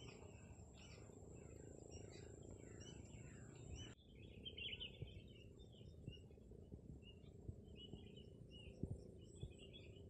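Faint chirping and twittering of small birds against a quiet rural background, with a few soft low knocks.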